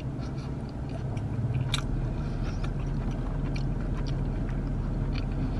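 A person chewing a mouthful of burger close to the microphone, with scattered small wet mouth clicks and one sharper click a little under two seconds in, over a steady low hum.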